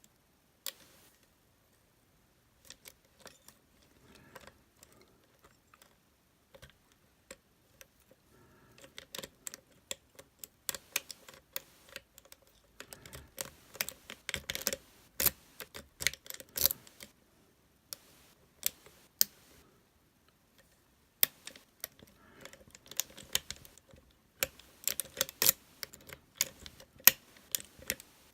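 Lock pick and tension tool clicking and scraping against the pins inside a Master Lock lockout-tagout padlock while it is being picked. A few scattered ticks at first, then dense runs of clicks from about nine seconds in, a brief lull, and more rapid clicking near the end.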